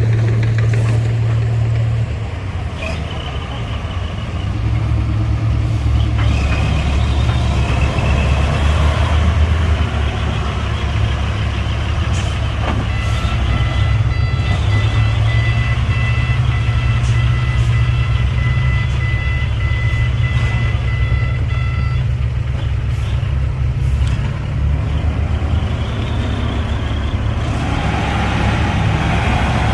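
Diesel engines of heavy earthmoving machines running under load, a loud low drone with the revs rising and falling. From about thirteen seconds in, a steady high tone sounds alongside for around nine seconds, then stops.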